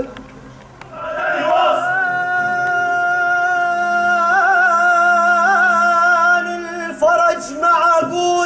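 A man singing in a live stage performance, holding one long note that wavers in the middle, then breaking into a few shorter phrases near the end. A lower steady tone sounds beneath the held note for a few seconds.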